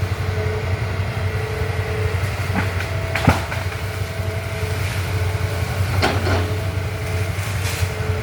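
Excavator's diesel engine running steadily with a low hum, with a few sharp metallic knocks and creaks over it; the loudest knock comes a little over three seconds in.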